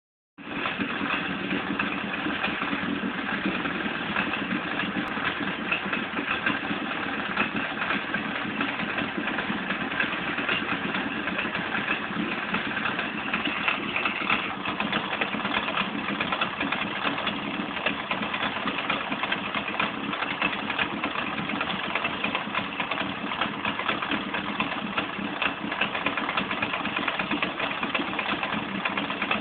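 Veterok-8 two-stroke outboard motor running steadily with a knock in the engine whose cause the owner does not know, after a rebuild with new upper and lower crankshaft bearings and new ignition.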